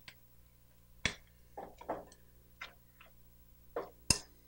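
A utensil clicking and tapping against a glass mixing bowl as ingredients are stirred: light, irregular taps, with two sharper knocks about a second in and near the end.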